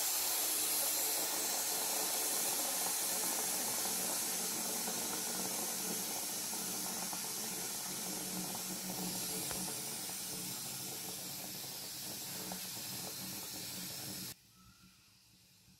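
Steam hissing steadily from the open vent pipe of an aluminium stovetop pressure cooker, its weight removed to let the remaining pressure out before the lid is opened. The hiss slowly fades and cuts off suddenly near the end.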